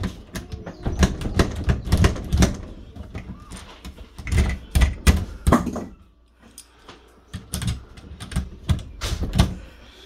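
Pliers clicking and rattling against the exposed metal spindle and latch mechanism of a round interior door knob, as someone tries to work a latch that is stuck locked. The clicks come in quick irregular runs, with a short quiet pause about six seconds in.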